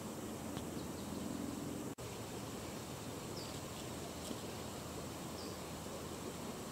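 Steady outdoor background hiss that drops out for an instant about two seconds in, with two faint, short high chirps in the middle.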